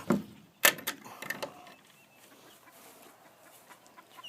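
A sharp knock less than a second in and a few lighter clicks after it, then faint chicken sounds.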